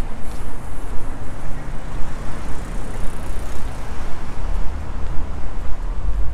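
A car passing on a street; its noise swells and fades about halfway through, over a low rumble.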